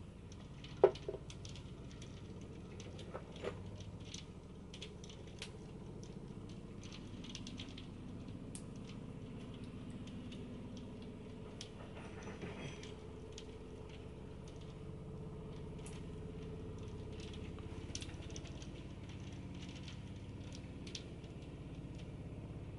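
Scattered faint clicks and taps of makeup items and a brush being handled, with one sharp click about a second in, and a soft brushing sound around twelve seconds in as a foundation brush is worked over the skin. A steady low hum underlies it all.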